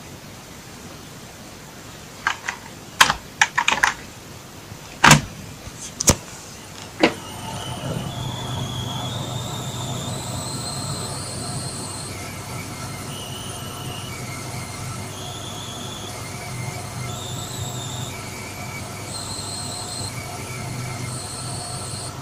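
Coil whine from an AMD Radeon RX 480 graphics card, made to play a tune: a series of high-pitched held notes, each about a second long, stepping up and down in pitch as a Vulkan demo's frame rate is paced to set each note. The pitch wavers and the notes span less than a full octave. Before the notes begin, a handful of sharp clicks.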